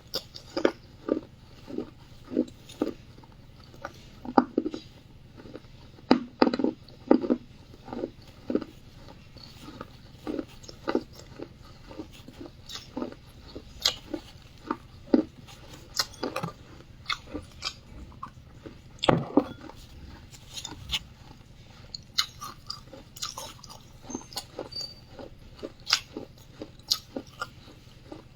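Close-miked biting and chewing of wet clay: an irregular run of sharp, wet crunches, up to about two a second.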